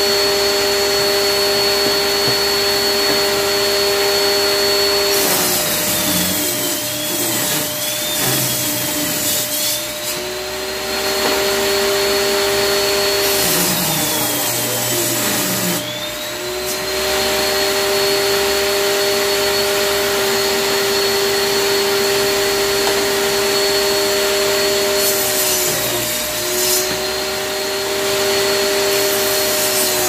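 Bosch table saw running with a steady whine. Three times, about five seconds in, around fourteen seconds and near the end, its motor pitch sags and a rasping cutting noise comes in as strips of wood are ripped through the blade.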